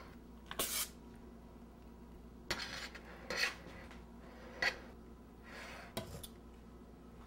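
A metal icing spatula scraping and clinking against a stainless steel mixing bowl as whipped cream is scooped out and spread on a cake, in five or so short scrapes with pauses between.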